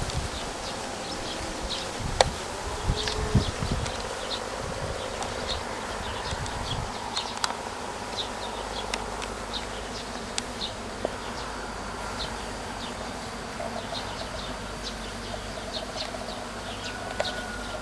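Honeybees buzzing steadily around beehives, a continuous drone with short high chirps scattered through it. A few low bumps come in the first few seconds.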